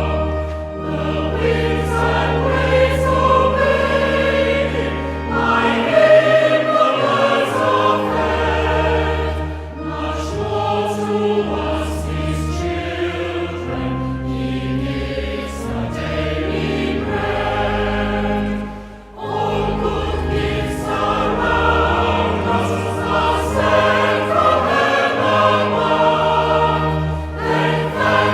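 A choir sings a hymn in several parts over a sustained bass accompaniment, with a brief pause between phrases about two-thirds of the way through.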